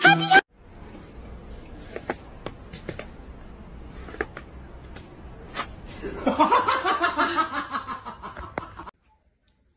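A person laughing, snickering in quick bursts from about six seconds in and cut off suddenly near the end; before it, only a faint background hum with a few light clicks.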